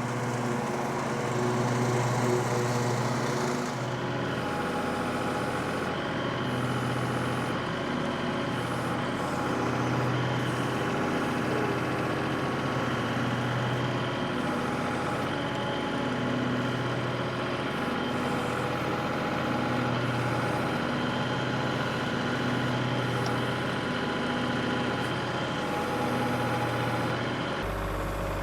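Kubota compact tractor's three-cylinder diesel engine running steadily, its note swelling and easing in a slow rhythm about every two seconds.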